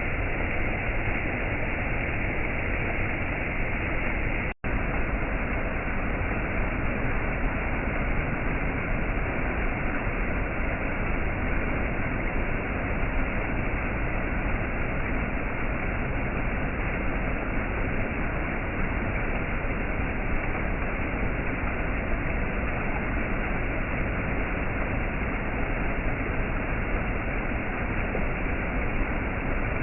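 Waterfall rushing as a steady, even roar of water, with a split-second drop-out about four and a half seconds in.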